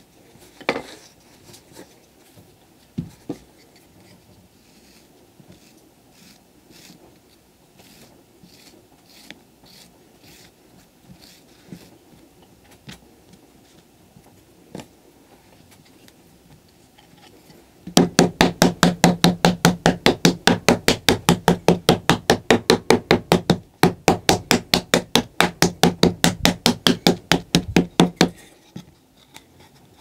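A wooden paddle beating a clay slab set in a wooden frame: a rapid, even run of knocks, about five a second, lasting about ten seconds and starting a little past the middle. Before it there are only faint scattered taps and scrapes of hands and tools working the clay.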